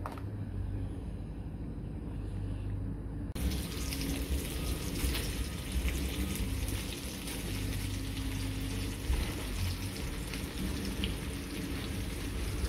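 A low hum for the first few seconds, then sausage pieces sizzling in a frying pan, a steady hiss with small crackles, as sliced mushrooms are tipped in.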